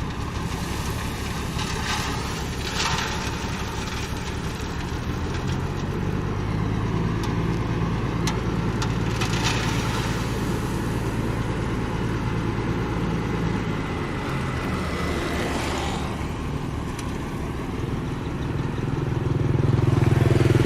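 Engine of a heavy construction machine running steadily, getting louder and working harder near the end, with a few knocks.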